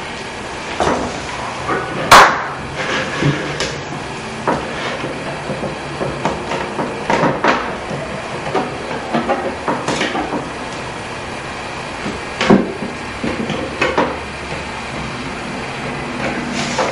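Clear plastic containers being handled on a tabletop: scattered knocks, clicks and rubbing, the loudest a sharp knock about two seconds in, over a steady background hiss.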